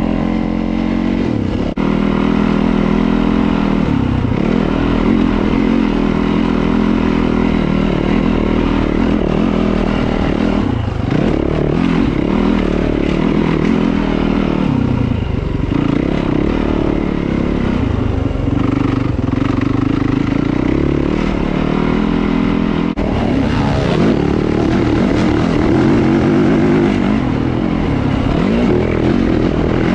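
Dirt bike engine running under the rider, revving up and easing off with the throttle, its pitch dipping briefly several times between gear changes on a climbing dirt track.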